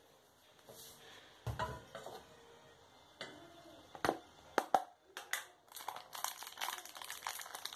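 Thin plastic bag crinkling as it is handled inside a clear plastic food tub. A few sharp knocks come first, then dense crinkling from about halfway on.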